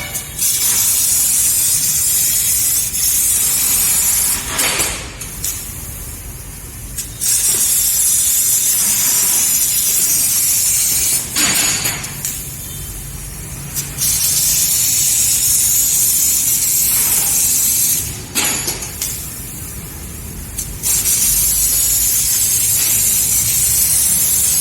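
CNC laser cutter's assist gas hissing loudly at the cutting head as it cuts a decorative pattern in sheet steel. The hiss runs in stretches of several seconds, broken by three quieter pauses as the cut stops and restarts.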